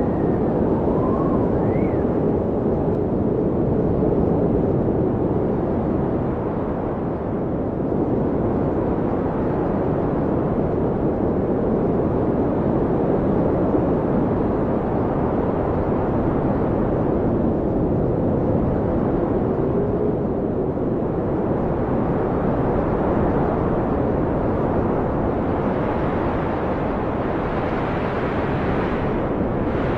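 Heavy snowstorm wind blowing steadily and deep, with faint howling tones that rise and fall now and then.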